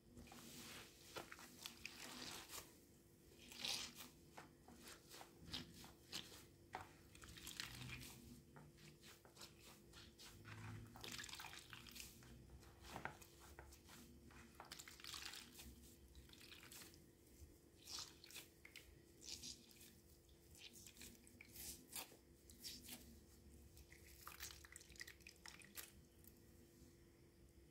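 Soapy sponge squeezed and pressed repeatedly in a shallow plastic tray of rinse water: faint, irregular wet squishing and crackling of suds, with dripping water.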